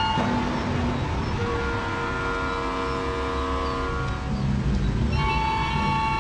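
Background music of long sustained chords, shifting to new chords about a second and a half in and again about five seconds in.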